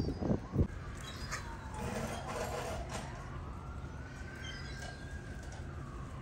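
Emergency-vehicle siren wailing, one tone slowly falling, rising and falling again, over a steady low rumble. A few short knocks near the start.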